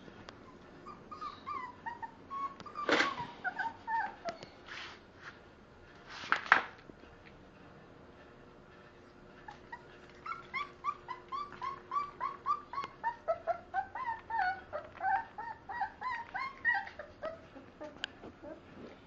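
English Bull Terrier puppy whimpering in short high whines, scattered at first, then a run of about three whines a second through the second half. Two sharp knocks stand out in the first seven seconds.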